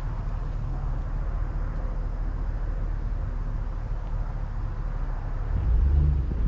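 Steady low vehicle rumble, with wind buffeting the microphone, swelling briefly near the end.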